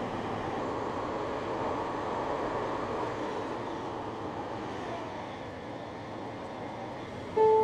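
Seattle Link light rail car heard from inside, running between stations with a steady rumble that eases a little in the second half as it nears the station. Near the end a chime tone sounds, the start of the onboard chime before the next-stop announcement.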